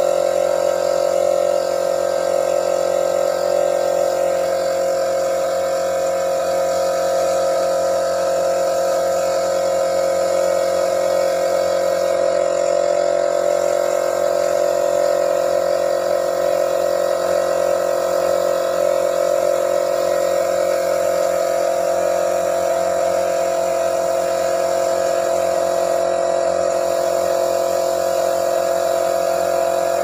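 Paint spray gun spraying thinner-based paint with a steady hiss, over the even hum of the motor driving it.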